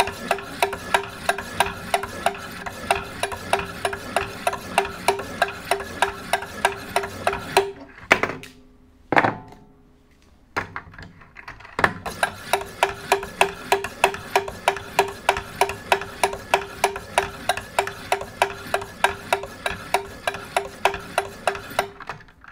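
Wicked Edge guided knife sharpener: a pair of sharpening stones stroked alternately along both sides of a clamped knife blade, about three scraping strokes a second with a recurring ringing note. The strokes stop for about four seconds partway through, with a few sharp clicks as the stones are swapped for another pair, then resume at the same pace.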